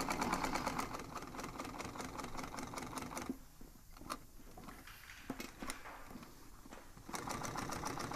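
Industrial upholstery sewing machine stitching through upholstery fabric backed with quarter-inch sew foam, running a rapid, even string of stitches. From about three seconds in it slows to a few single stitches, then runs fast again near the end.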